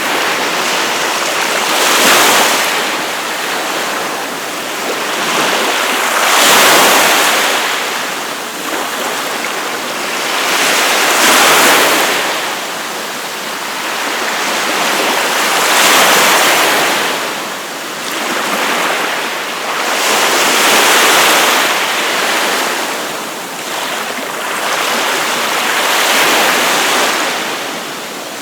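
Surf on a beach: waves breaking and washing up in a steady rush, swelling about every four to five seconds.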